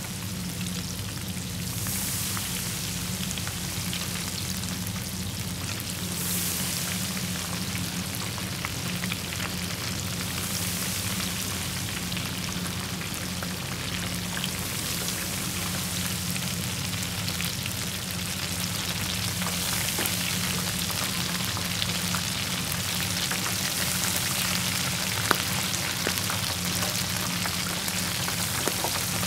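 King shrimp frying in hot oil: a steady sizzle with scattered fine crackles, over a low steady hum.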